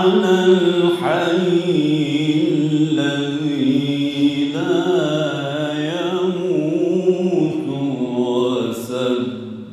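A man's solo unaccompanied melodic religious recitation, chanted in long held notes that waver in ornaments, with a short breath near the end.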